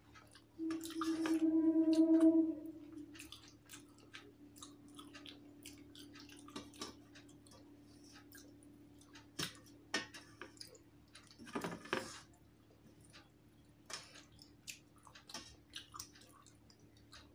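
Eating by hand from a steel plate: fingers mixing and scraping rice on the metal, small clicks and wet squishes, and chewing. A loud steady hum lasts about two seconds near the start.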